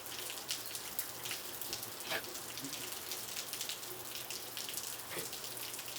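Steady rain falling, with many individual drops ticking against a surface over an even hiss.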